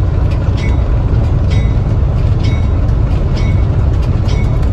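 Train rolling along the rails with a steady heavy low rumble, and a sharp click from the wheels about once a second.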